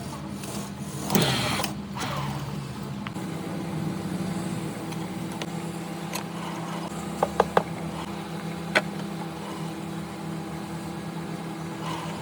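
Electric power tool motor running steadily with a low hum, with a quick run of three sharp clicks and then one more click partway through.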